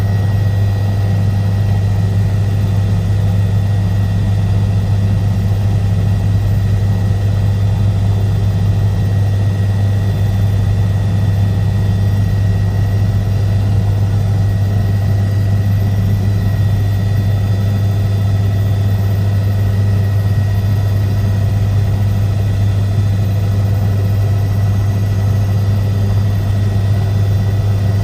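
Helicopter engine and rotors running in flight: a loud, steady low drone with a faint high whine above it.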